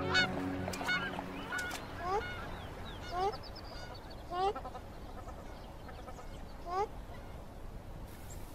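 Waterfowl calling: a cluster of quick honking calls in the first two seconds, then single rising honks every second or so, the last about seven seconds in.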